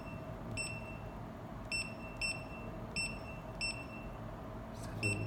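Neolock NeoA3 smart lock's keypad beeping at each key press: about six short, high beeps at uneven intervals, as a PIN code is tapped in.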